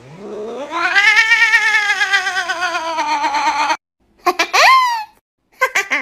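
Domestic cats calling: one long yowl with a quick wavering in its pitch, rising and then slowly falling for nearly four seconds, then a sharply rising meow and a short call near the end.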